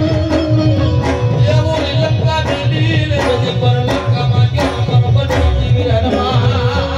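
Indian folk music played loud through a DJ sound system: tabla-like hand drums over a heavy pulsing bass beat, with a voice singing a wavering melody.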